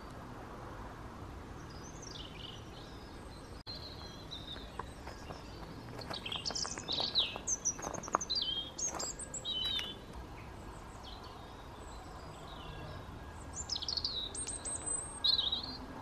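Small songbirds singing and calling outdoors: a run of short, high chirps and downward-sweeping whistled notes, busiest a few seconds into the middle and again near the end, over a faint steady background noise.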